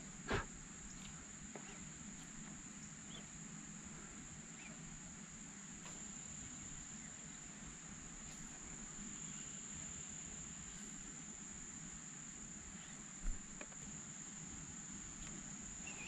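Summer insects droning, a steady high-pitched buzz over the river. Two short knocks, one just after the start and one about 13 seconds in, stand out above it.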